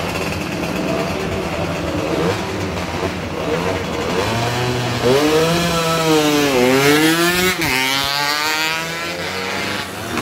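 Two-stroke racing motorcycles running hard past, with a loud engine whose pitch climbs and falls away several times, loudest from about five to eight seconds in.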